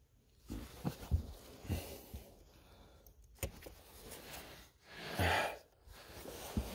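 Scattered small clicks and knocks of a plastic wiring connector being worked loose and unplugged from a car's blower motor resistor, with a breathy exhale about five seconds in.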